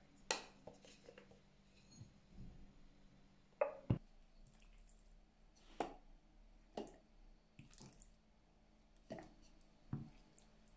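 Scattered soft taps and clicks of food preparation, roughly one every second, with a slightly firmer knock about four seconds in and another near the end.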